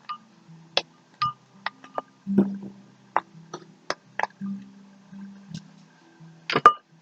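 Fluffy shaving-cream slime being squished and worked by hand: a run of sharp, sticky clicks and pops at uneven intervals, with a couple of louder squelches near the end. Quiet background music with low held notes plays underneath.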